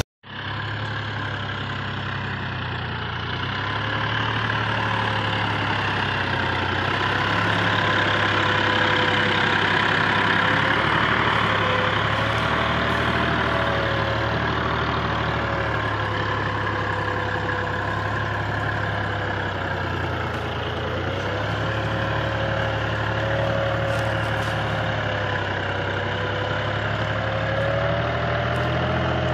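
Tractor diesel engine running steadily under load while pulling a spring-tine cultivator through dry soil. Its pitch wavers slightly up and down.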